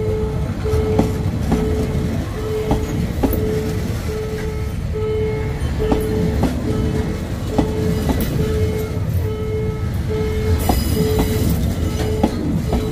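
Passenger train coaches rolling slowly past at close range: a low rumble, with wheels clacking over rail joints about every half second. A single tone pulses about twice a second throughout, and there is a brief hiss near the end.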